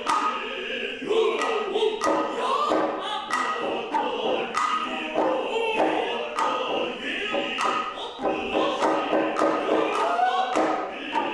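Noh chant (utai) sung in unison by the chorus, with sharp hand-drum strokes at irregular intervals.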